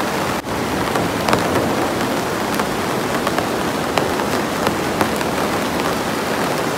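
Rain falling on a plastic-film greenhouse, heard from inside: a steady rush with scattered sharper drop hits.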